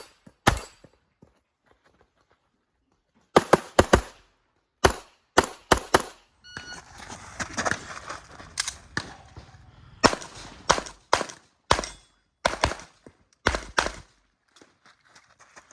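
Tanfoglio pistol fired in rapid strings of shots, mostly in quick pairs, typical of an IPSC Production-division stage. The shots come in bursts with short pauses between them, and in the middle there is a few seconds' break filled with rustling and movement noise.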